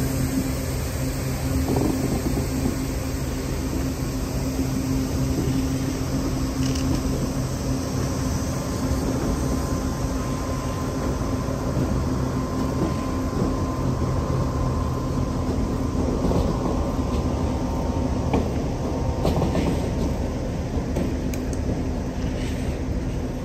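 Siemens ER20 diesel-electric locomotive hauling a train of MLR passenger cars slowly, its diesel engine running with a steady low hum over the rumble of the wheels, with a few clicks over rail joints in the second half.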